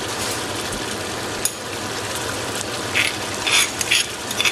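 Mutton sizzling steadily as it fries in oil in a pot. From about three seconds in, several short scraping strokes as crushed ginger is scraped out of a stone mortar into the pot.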